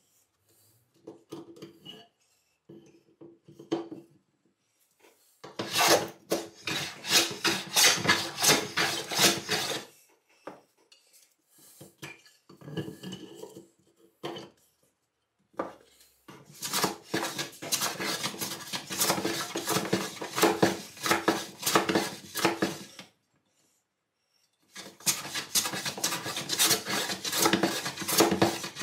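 A hand tool scraping along a wooden board in quick back-and-forth strokes. The strokes come in three spells with pauses between them, after a few light knocks at the start.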